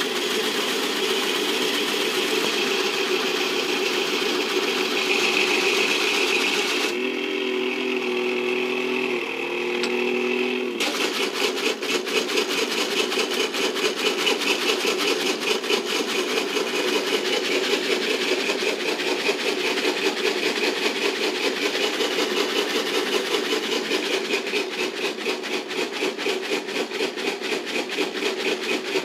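Battery-driven Technofix 315 Gigant tin construction-site toy running: its small electric motor and gearing whir while the tin parts rattle. The sound changes between about seven and eleven seconds in, then settles into a fast, even clicking.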